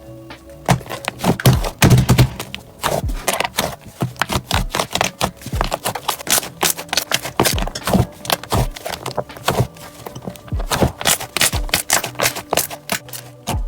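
Slime being squeezed and poked by hand, making dense, irregular crackling clicks and pops.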